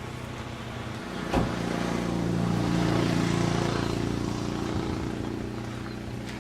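Car engine running while driving, heard from inside the car: a steady drone that swells and then eases off, with one sharp click about 1.4 seconds in.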